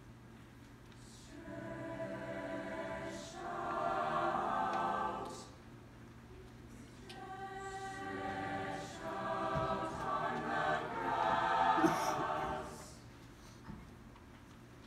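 Mixed choir singing unaccompanied, a cappella: two slow phrases of sustained chords, with a short pause between them.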